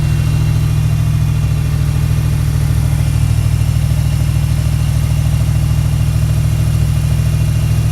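Ford 5.0-litre (302) V8 idling steadily, freshly started after a head gasket replacement and left running to break in.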